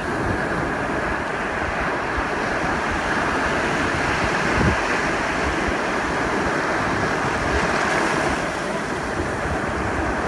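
Small waves breaking and washing up the sand in shallow surf, a steady rushing wash, with wind buffeting the microphone.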